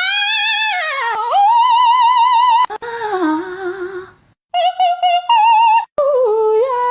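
A high voice singing long notes with strong, even vibrato, sliding between pitches in several phrases with short breaks between them.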